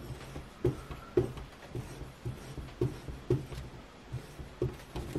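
Elbor abrasive stone stroked along a hatchet's edge on an angle-guided sharpener set to 21 degrees, working the secondary bevel: a dry scraping with a light knock about twice a second as each stroke ends.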